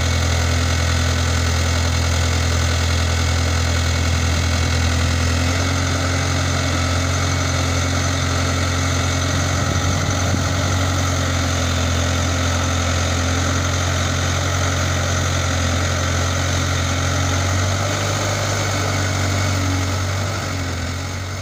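Case 770EX Magnum backhoe loader's diesel engine running steadily while the backhoe arm works in deep mud; its low hum shifts slightly in pitch about five seconds in and again near the end.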